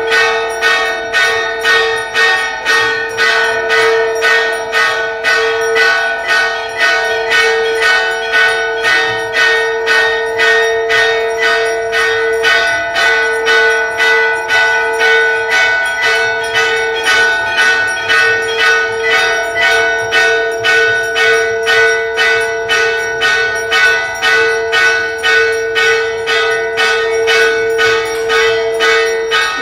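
Brass temple bells rung steadily for the aarti, about two strikes a second without a break, each strike ringing on into the next.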